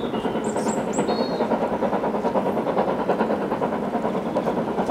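Steam locomotive working, with a quick, even run of exhaust beats that goes on steadily. Short bird chirps sound over it in the first second or so.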